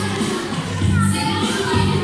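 Loud pop music with a steady bass beat and singing, played in a large hall, with a crowd's voices underneath.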